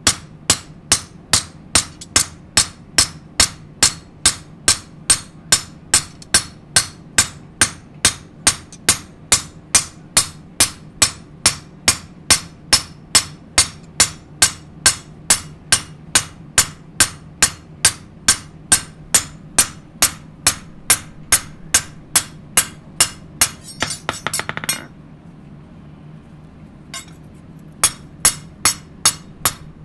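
Hand hammer striking a kitchen-knife blade on an anvil, a sharp metallic clink about twice a second, in an even rhythm. This is nama-tataki hammering, which compacts the steel and sets the blade's shape. About 24 seconds in, the hammering breaks off with a brief rattle, pauses, and starts again near the end.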